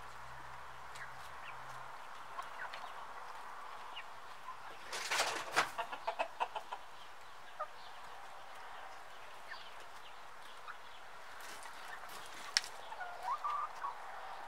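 A flock of brown hens clucking while they feed on scattered grain, with a burst of quick sharp taps about five seconds in and another cluster near the end.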